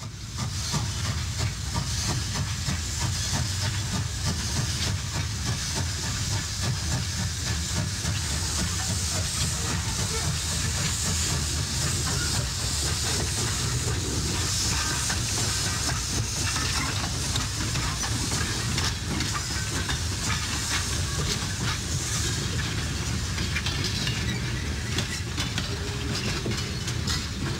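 1927 Baldwin 2-8-0 Consolidation steam locomotive hissing steam steadily, over a steady low rumble.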